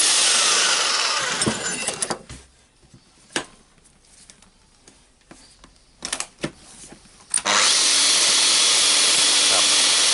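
Makita HR4010C SDS-Max rotary hammer running in hammer mode. It runs for about two seconds, stops with a few clicks and knocks, then starts again about seven and a half seconds in. The motor spins but the tool does not hammer, which the owner suspects is a broken connecting rod.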